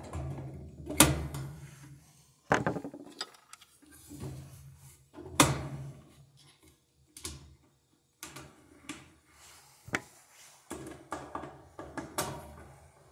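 Sheet-metal rear panel of a Whirlpool washer cabinet being handled, fitted and screwed back in place: scattered sharp metal knocks and clicks with rattling in between and short quiet gaps.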